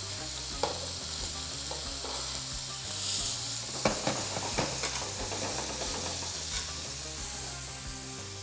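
Chicken thighs searing in hot olive oil in an enamel roasting pan, sizzling steadily, with a few sharp clicks as the pieces are turned with metal tongs, most of them in the middle. The sizzle marks the browning stage, five minutes a side to colour the chicken before it goes into the oven.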